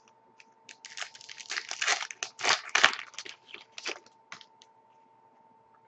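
Wrapper of a trading-card pack crinkling and tearing as it is ripped open by hand: a dense run of crackling for about two seconds, then a few scattered crinkles that die away. A faint steady hum runs underneath.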